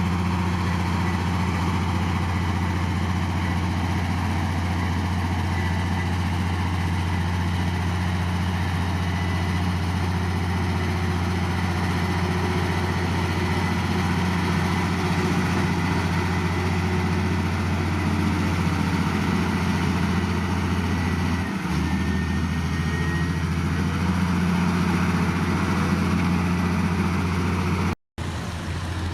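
Heavy diesel engine running steadily at a constant low pitch. The sound drops out for a moment near the end.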